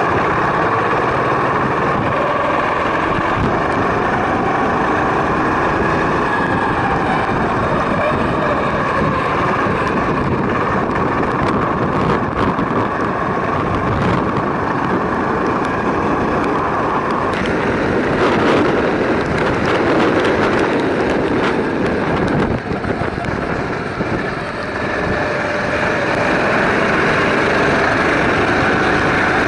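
Go-kart engine running steadily under throttle, heard from an onboard camera, with a brief dip in level about three-quarters of the way through before it runs louder again near the end.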